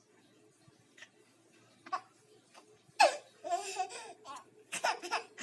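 Baby laughing, with a sudden loud squealing laugh about three seconds in followed by bouts of giggling.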